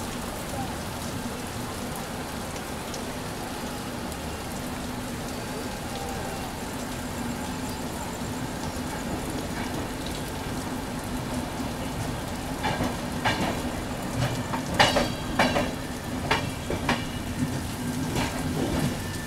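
Steady rain, with a run of sharp clanks starting about two-thirds of the way through.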